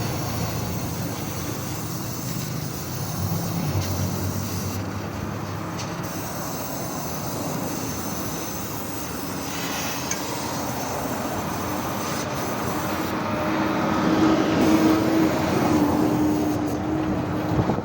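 Chevrolet Chevy's four-cylinder engine and exhaust running, fitted with a new muffler and tip meant to make it less loud. The engine note climbs in pitch and gets louder about twelve seconds in as the revs rise.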